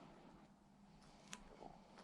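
Near silence: faint room tone with a low steady hum and one small click a little over a second in.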